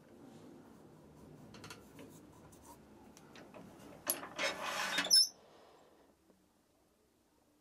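Quiet handling and rubbing at a stopped wood lathe, then a loud rasping scrape of metal on metal about four seconds in, lasting about a second and cutting off abruptly, as the cast-iron tool rest is shifted along the lathe.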